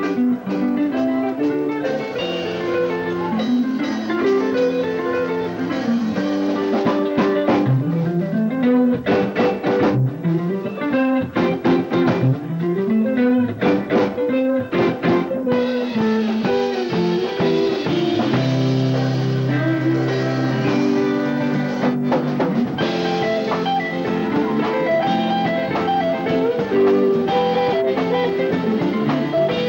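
Rock band playing live: guitar lines running up and down over bass and drum kit. Taped on a mini cassette, so the sound is dull with no top end.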